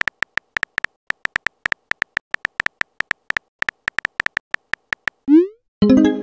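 Texting-app keyboard sound effects: a rapid run of short, identical high-pitched typing clicks, about six a second, then a quick rising swoosh as the message is sent, and a chime of several tones near the end.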